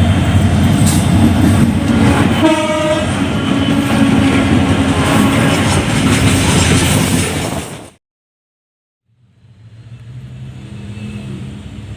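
CC205 diesel locomotive sounding a long horn blast over its loud engine and rail noise as it pulls away. The sound cuts off abruptly about eight seconds in, and after a second of silence a quieter steady locomotive rumble follows.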